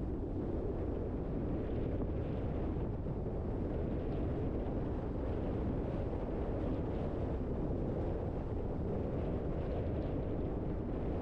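Steady low rumble of road noise from a car driving at an even speed: tyres and engine, with some wind noise.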